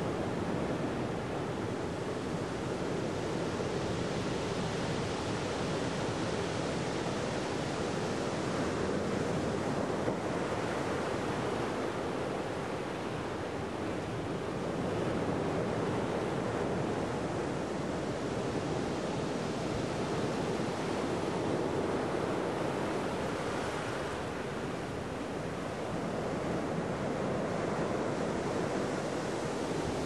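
Ocean surf washing and breaking against a rocky shore: a steady rush that swells and eases every several seconds.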